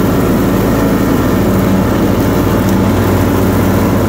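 Mower engine running steadily at constant speed while cutting grass.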